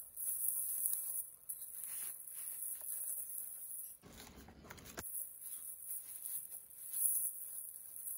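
Black bubble-lined plastic mailer crinkling and rustling as it is pulled open by hand, with small cardboard boxes slid out and handled. A louder stretch of rustling comes about four seconds in, over a steady high hiss.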